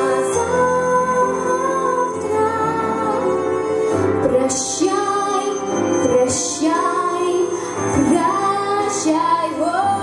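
A girl singing a slow song into a microphone over instrumental accompaniment, holding long notes with a wavering vibrato.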